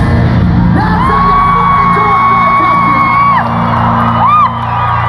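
Live band playing loud in a concert hall, heard from the audience, with heavy bass. A high voice holds one long note for about two and a half seconds, then gives a short whoop near the end.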